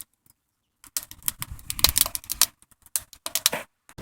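Scrap-wood fire crackling and popping in a metal wood stove: a dense run of sharp snaps starting about a second in.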